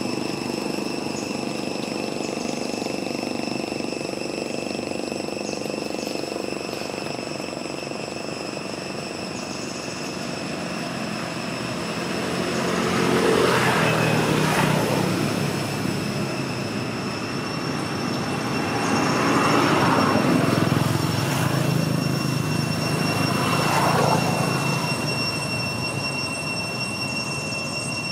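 Engine noise from passing motor vehicles swells and fades three times in the second half. Underneath is a steady background hum and a thin, steady high-pitched whine.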